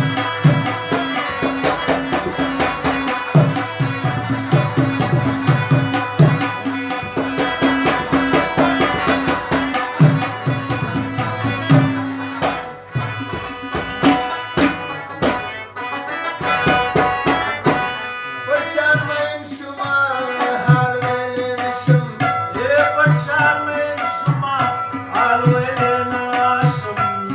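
Pashto folk ensemble playing tabla and harmonium: steady tabla strokes over a held harmonium drone, then a stretch of fast tabla strokes in the middle. For the last third a singing voice carries the melody over the tabla.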